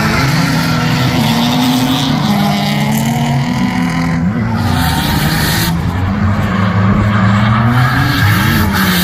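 Two drift cars, one a BMW E46 coupe, sliding sideways in tandem. Their engines run at high revs that keep rising and falling, over tyre squeal and the scrub of the rear tyres spinning into smoke.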